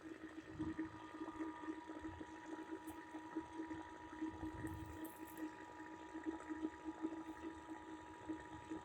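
Faint steady hum and hiss of low-level dead air from a radio receiver between broadcast messages. A fainter high steady tone joins about half a second in.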